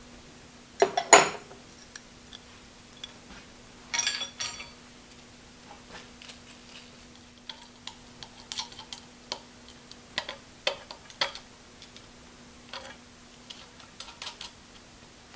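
Metal parts being handled and fitted on a lathe headstock: a heavy clunk about a second in, a ringing metal clink around four seconds, then scattered light clicks and taps as the sensor bracket is positioned. A faint steady hum runs underneath.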